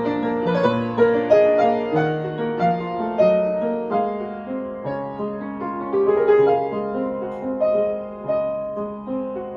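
Piano music, with notes struck one after another over held low bass notes.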